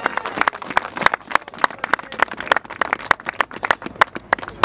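Crowd applauding, with scattered, distinct claps.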